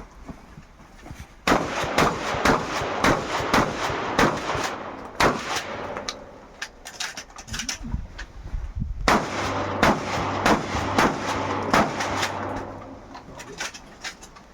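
Shotgun fired rapidly in two long strings of shots, roughly two a second, with a short pause in the middle; each shot is followed by a ringing tail.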